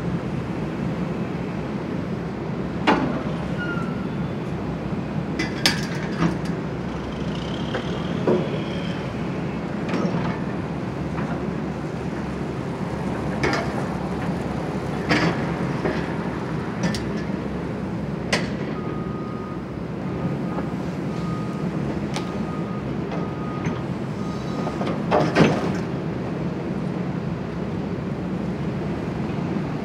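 Hydraulic excavator demolishing a building: a steady diesel engine rumble with scattered knocks and crashes of breaking debris, the loudest one near the end. An interrupted high beeping runs for several seconds past the middle.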